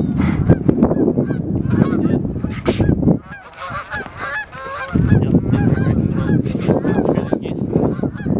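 A flock of geese honking overhead, many calls overlapping. The honking thins out briefly about three seconds in and picks up again about five seconds in.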